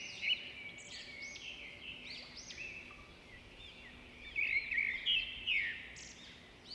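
Small bird chirping: a rapid series of short rising-and-falling chirps, louder in the second half.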